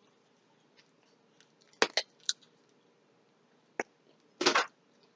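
Eating seafood with the hands and mouth: three quick sharp clicks about two seconds in, another near four seconds, then a short crackly crunch of shell being bitten or pulled apart.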